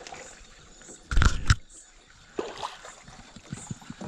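Two heavy thumps close by, about a second in and half a second apart, over faint water sounds.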